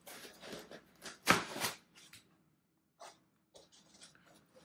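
Foam packing insert being lifted out of a cardboard box: foam scraping and rubbing against the cardboard, loudest about a second in, then a few light knocks.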